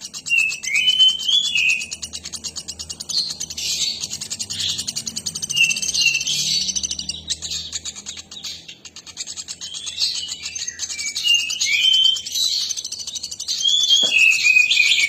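Nuthatch (pelatuk batu) calling energetically and without pause: a fast, high trilled chatter mixed with short chirps that swoop up and down.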